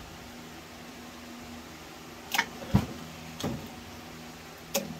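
Hand snips cutting wires off a microwave transformer: four sharp clicks and snaps, starting a little over two seconds in, the loudest with a dull thud. A steady low hum runs underneath.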